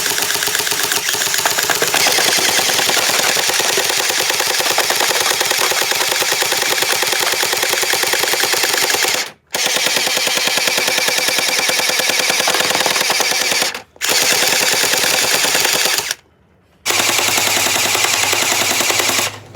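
Chinese-made GB CrossFire airsoft gun firing on full auto: four long, rapid strings of shots with brief pauses between them.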